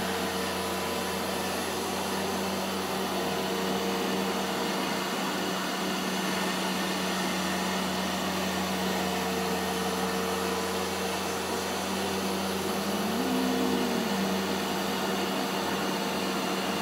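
Upright carpet shampooer running steadily, its motor giving an even drone with a constant hum.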